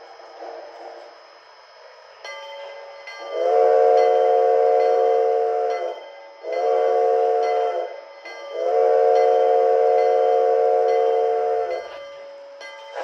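Sound decoder of an On3 model D&RGW K-28 steam locomotive playing its whistle through the onboard speaker: a long blast, a short one, then a long one, each a chord of several notes.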